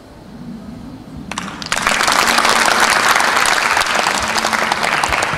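Audience applause breaking out about a second and a half in and going on steadily, after a quiet opening with only a faint low hall hum.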